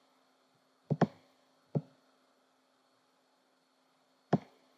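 Computer mouse clicks: a quick double click about a second in, a single click a little later, and another near the end, with near silence between.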